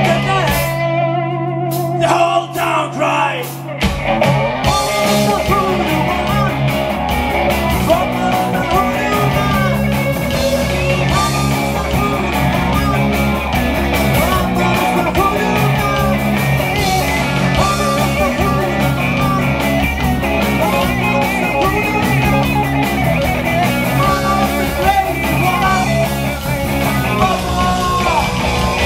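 Live rock band playing through a PA: electric guitars, bass and drums. A chord rings out held for the first few seconds, then the drums and full band come back in about four seconds in, with bending lead lines over the beat.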